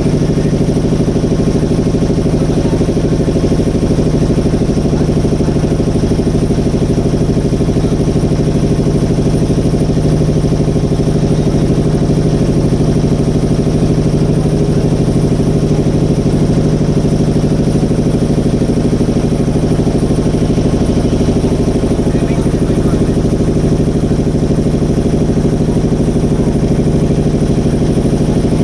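Motorboat engine running steadily at a constant speed, close by, with an even, unchanging pitch.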